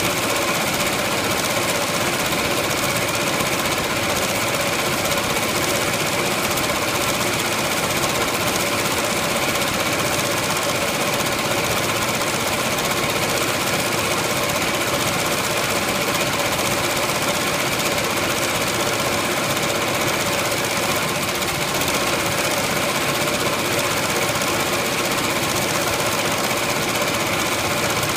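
Multi-needle embroidery machine stitching at speed: a fast, steady rattle of needle strokes with a constant mechanical hum.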